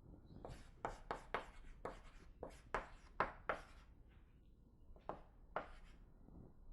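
Writing on a lecture-hall board: a quick run of about nine short strokes, then a pause and two more strokes.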